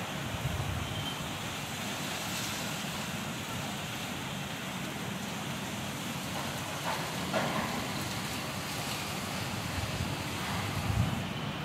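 Heavy rain falling steadily in a dense, even hiss, with a low rumble underneath and a couple of brief louder bumps about seven and eleven seconds in.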